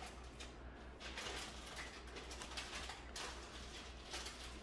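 Adhesive vinyl stencil being peeled off a ceramic bisque plate: faint, irregular rustling strokes, a few in a row, over a low steady hum.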